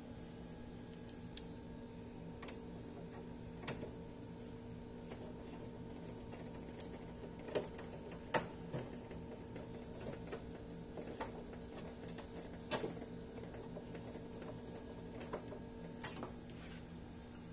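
Scattered clicks and taps of a screwdriver working screws into a CRT television's plastic chassis, a few seconds apart, over a steady low hum.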